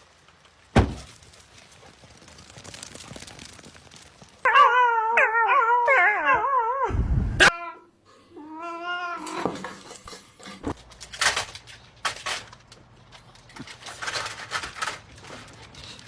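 A puppy whining and whimpering in a long wavering cry, then a shorter one, with a knock about a second in and scattered clicks and scuffles later.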